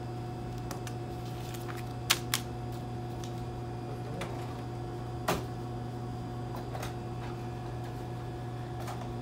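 Steady hum of store equipment with scattered sharp clicks and taps from papers and items handled at a checkout counter: two quick clicks about two seconds in and a louder one a little after five seconds.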